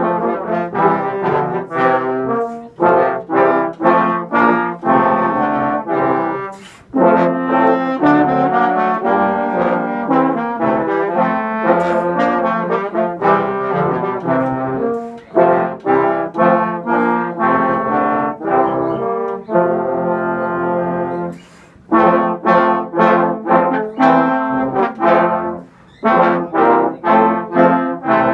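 Six trombones playing together in harmony, in phrases broken by brief pauses.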